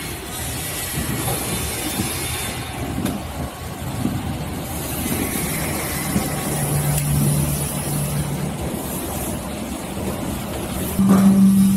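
Potato chip line machinery running, including the inclined belt conveyor lifting potatoes: a steady mechanical running noise with a low motor hum, and a louder hum coming in about eleven seconds in.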